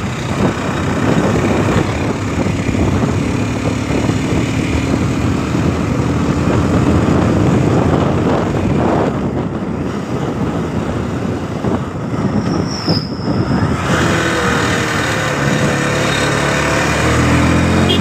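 Motorcycle engine running under way, with heavy wind noise on the microphone over it. The engine note rises slowly in the first half and changes again near the end.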